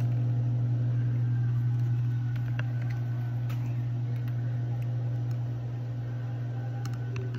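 Steady low hum, like a fan or appliance running, with a few faint clicks.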